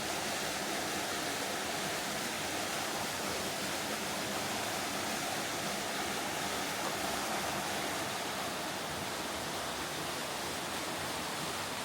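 Waterfall pouring steadily into a creek pool, a constant rushing of water.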